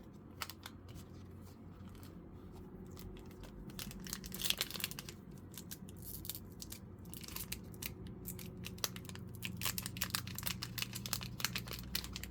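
Foil wrapper of a Pokémon card booster pack being torn open and crinkled, a rapid run of small rustles and clicks that gets busier in the second half.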